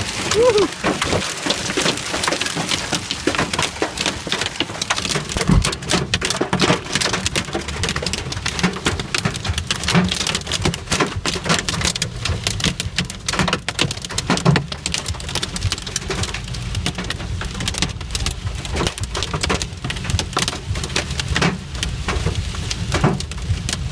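Large hailstones pelting a car's body and windscreen, heard from inside the car: a dense, continuous clatter of hard impacts with a few heavier single knocks.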